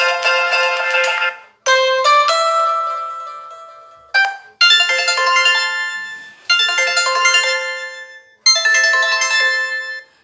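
Microsoft Lumia 535 ringtone playing from the phone's small loudspeaker, thin and without bass. Short melodic phrases of bell- or piano-like notes start sharply and fade out, about every two seconds, with brief gaps between them.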